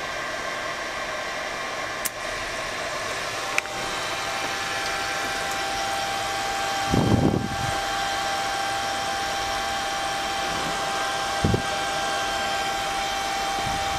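Steady fan-like whir with a faint constant hum, with a click about two seconds in and another about three and a half seconds in, after which a thin steady whine sets in; dull knocks around seven seconds and near eleven and a half. The electric boat's DC drive motor, given its start signal, does not spin up, held back by too low a current limit.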